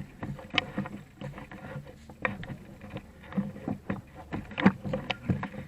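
Irregular knocks and clicks, a few a second, with a low steady hum underneath.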